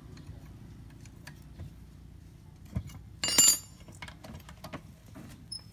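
Metal tools and diesel injector parts clinking and knocking during injector work. The loudest is one sharp metallic clank with a brief ring about three and a half seconds in.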